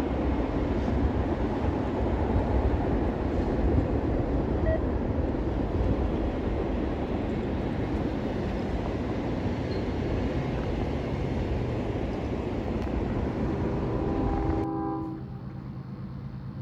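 Train noise running steadily and loud, a dense rumble with no pause. A locomotive horn sounds briefly near the end, then the sound cuts off abruptly to a quieter, fainter rumble.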